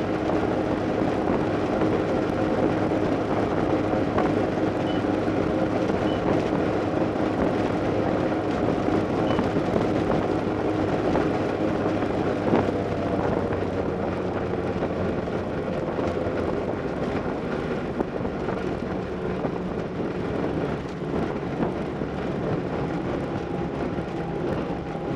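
Boat engine running steadily at high speed, heard from on board over the rush of the hull. The engine note eases slightly lower about halfway through.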